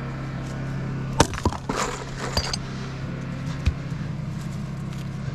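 Axe blows into red oak: a burst of sharp knocks and splintering cracks about a second in, then a single knock near the four-second mark.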